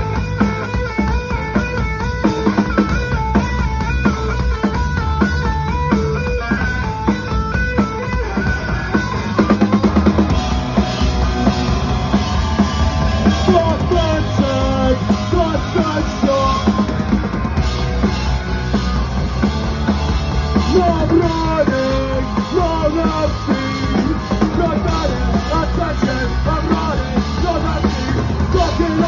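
Live punk band playing loud in a small club: a repeating guitar riff over drums, then the full band comes in harder about ten seconds in, with a singer's voice over it for the rest.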